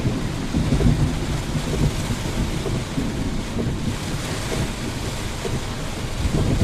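Rain falling in a thunderstorm, a steady hiss over a continuous low rumble.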